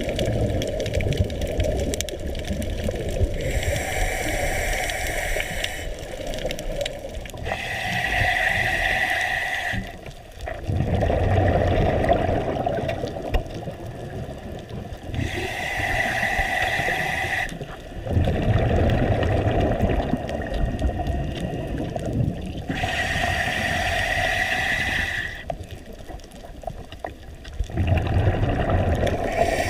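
Scuba diver breathing through a regulator underwater: hissing inhales with a steady tone in them alternate with low, bubbling exhales, about four breaths in a slow, regular rhythm.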